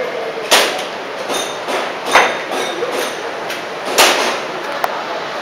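Airsoft pistol fire during a practical-shooting course: sharp cracks of gas pistol shots and BB hits on targets, three loud ones about one and a half to two seconds apart with fainter clicks in between.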